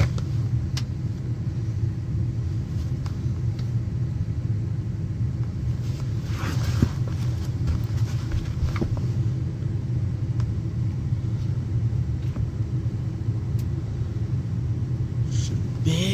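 Steady low rumble of running machinery, with a few light knocks and a brief rustle of handling.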